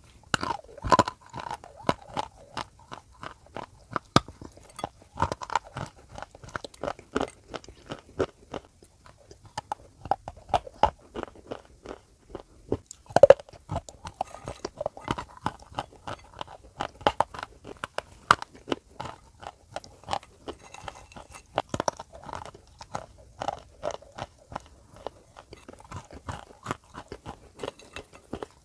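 Dry grey-green clay chunks being bitten and chewed right at the mouth: a dense, uneven run of sharp crunches and cracks, with one especially loud crack about halfway through.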